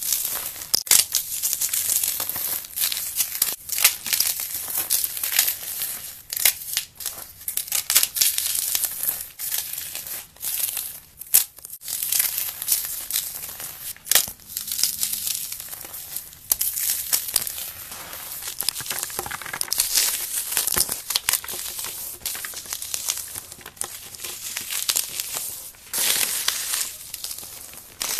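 Paste-coated dry floral foam being crushed and crumbled in the hands: dense, irregular crunching and crackling with many sharp snaps.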